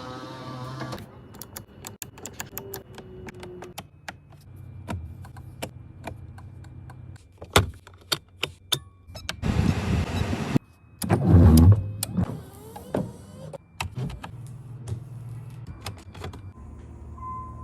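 Many sharp clicks of switches and controls being worked in a 1996 Nissan 300ZX, over a low steady hum. An electric motor whirs for about a second near the middle, followed by a louder burst.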